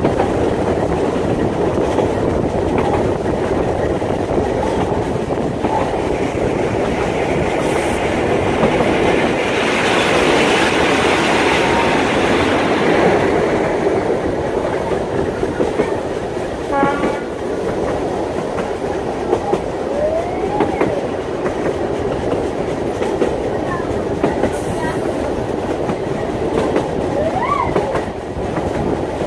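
Narrow-gauge train running at speed, heard from an open coach window: a steady rumble of wheels on the rails with the clickety-clack of rail joints, loudest and hissiest for a few seconds about a third of the way in.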